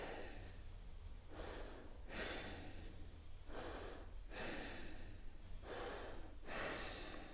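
A woman breathing audibly and deeply through a close microphone, long even inhales and exhales of about a second each, while she holds a side angle yoga pose.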